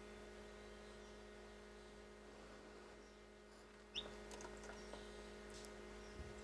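Near silence over a steady electrical hum. About four seconds in comes one short rising peep from the hatching chick, followed by a few faint taps.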